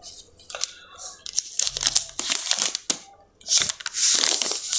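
Plastic film wrapping a new smartphone crinkling and rustling as the phone is picked up and handled, with scattered light clicks and taps; the longest, loudest rustle comes near the end.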